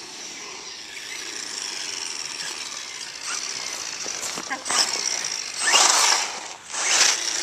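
Exceed Dynamite 1/10-scale RC truck driving on asphalt: a steady high hiss with a faint thin whine, then three louder rasping bursts in the second half.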